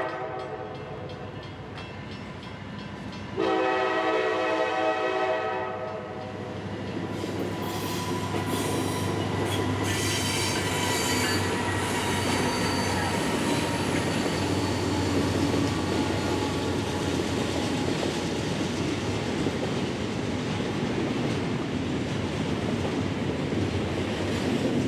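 Diesel freight locomotive's air horn sounding a blast of about two and a half seconds a few seconds in, with fainter horn calls after it, as a Norfolk Southern freight train approaches, its engine and rolling wheels rising to a steady rumble.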